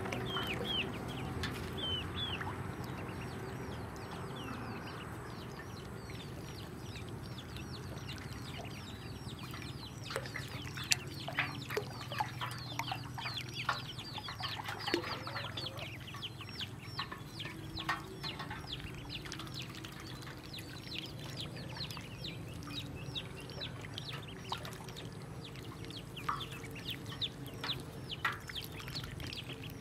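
Ducklings peeping: many short, high calls that fall in pitch, coming thick and fast through the middle and thinning toward the end, over a faint low steady hum.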